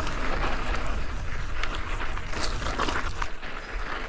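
Mountain bike rolling over loose dirt and gravel, with its tyres crunching and scattered clicks and rattles from the bike. Wind rumbles on the microphone underneath.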